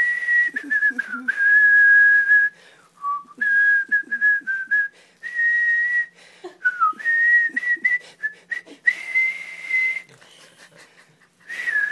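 A person whistling a simple tune through pursed lips: a halting string of held notes, mostly at nearly the same pitch, broken by short pauses and a couple of brief dips lower.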